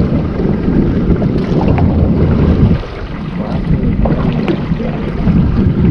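Wind buffeting the microphone on a small open boat at sea: a loud, uneven rumble that eases for a moment about three seconds in, with water sounds around the boat.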